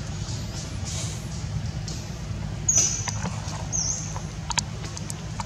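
Two short high-pitched squeaks, about three and four seconds in, with a few faint clicks, over a steady low hum like a running engine.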